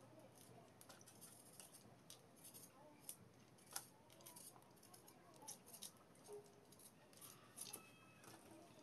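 Faint, irregular crisp snaps and clicks of cauliflower florets being cut from the stalk with a blade and broken apart by hand.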